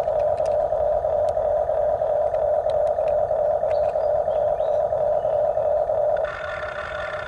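Electric motor of an RC toy excavator whining steadily. About six seconds in its note changes, thinner, higher and quieter, for about a second.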